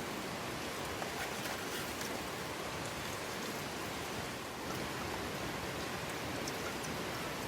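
Steady rain, an even hiss with a few faint drop ticks scattered through it.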